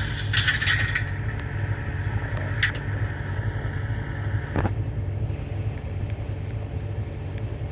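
Land Rover Defender running steadily with a low hum, with a short falling sound about halfway through.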